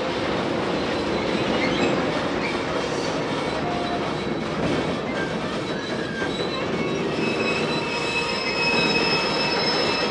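Freight train wagons rolling past on the track, with a steady clatter of wheels and thin, high-pitched wheel squeal that grows clearer about halfway through.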